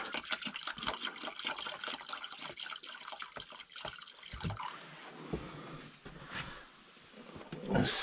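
Vinegar pouring from a plastic jug into a bucket of water, a splashing trickle that tapers off about five seconds in.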